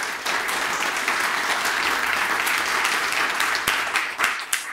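Audience applauding at the end of a talk, a dense steady clapping that thins out near the end into a few last separate claps.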